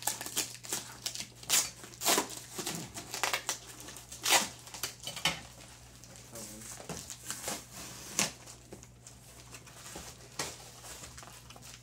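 Cardboard shipping boxes torn open by hand: several sharp rips, the loudest about four seconds in and again about eight seconds in, with crinkling of paper and plastic packing in between.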